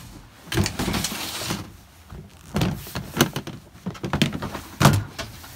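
A plastic storage tote being handled and set down: a scraping rustle in the first second or so, then several sharp plastic knocks and clicks, the loudest near the end.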